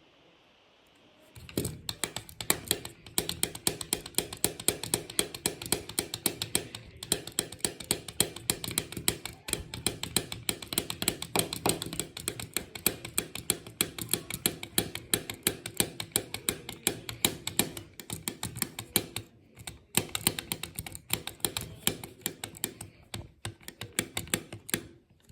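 Rapid typing: dense keystroke clicks, several a second, starting about a second in, with a few brief pauses.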